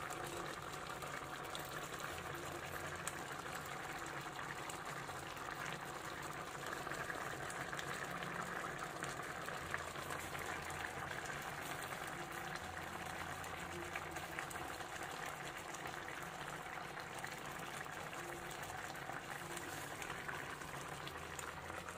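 A pot of pork ribs in tomato sauce bubbling steadily at a simmer, a continuous fine crackle of bursting bubbles.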